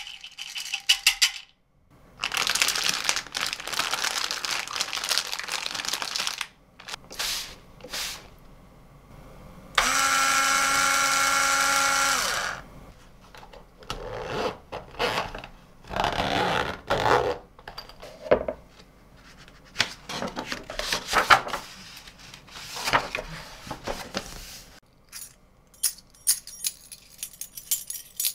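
A run of separate tabletop handling sounds: a small plastic container turned and scraped, a zipper on a hard case run along with a buzzing rasp, and a bunch of keys jingling near the end.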